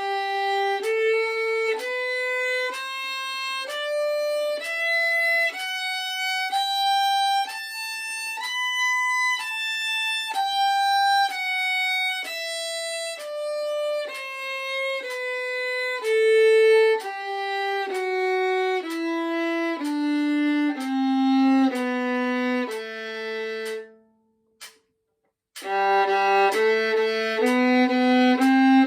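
Solo violin playing a two-octave G major scale in steady bowed notes, about one per second, climbing to the top and back down to the low G. After a brief pause near the end, the scale starts again with fast tremolo bowing on each note.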